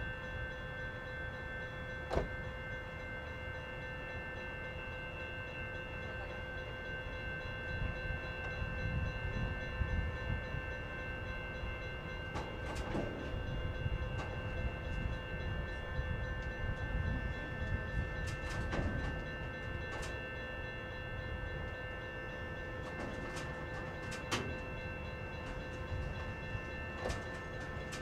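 Freight train of boxcars creeping very slowly past, with a low rumble under a steady squeal of several high tones. Sharp metal clanks come now and then, about seven times.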